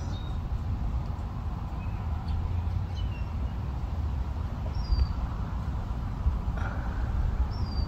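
Wind buffeting the microphone in a steady low rumble, with a few short, falling bird chirps now and then.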